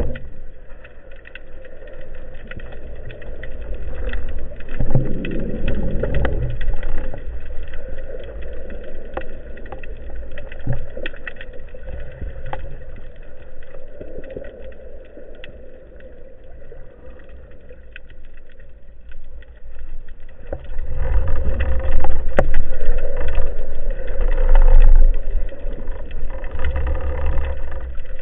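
Underwater sound picked up through an action camera's sealed housing on a speargun: a muffled low rumble of moving water with scattered clicks and ticks. The rumble grows louder and heavier about three-quarters of the way through.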